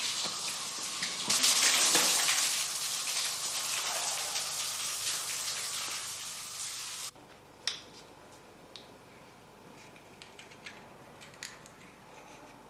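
Showers running in a tiled shower room, a steady rush of water that swells about a second and a half in and cuts off suddenly about seven seconds in. After that, small sharp clicks and handling sounds.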